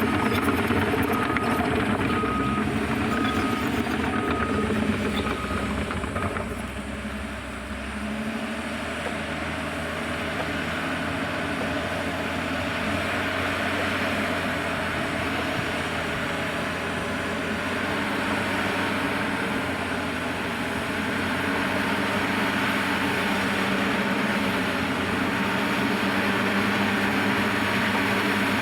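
Heavy diesel engine of a bulldozer running steadily. A regular high beeping repeats over the first six seconds or so. The engine note dips and changes about seven seconds in, then runs on steadily.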